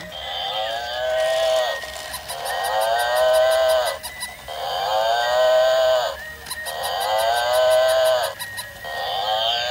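An electronic honking animal call repeated about five times, roughly every two seconds. Each call is about a second and a half long and rises and then sags in pitch.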